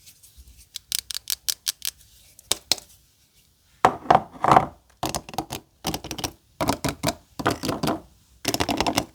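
A quick run of light taps and clicks on soap packaging, then, after a pause, several bursts of crinkling as the packaging is handled.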